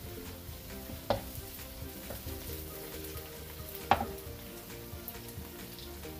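Chopped onion, garlic and tomato sizzling in hot oil in a nonstick wok as they are sautéed and stirred, with two sharp knocks, one about a second in and a louder one near four seconds in.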